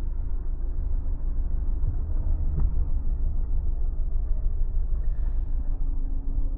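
A 2025 Mazda CX-30 on the move: a steady, deep rumble of engine, road and wind with a constant low hum.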